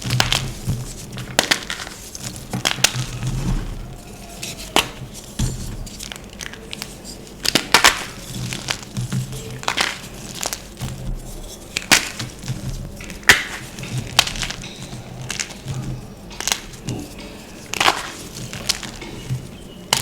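Gym chalk being crushed and crumbled: a string of sharp, irregular crunches and crackles, some closely spaced and some with gaps of a second or more between them.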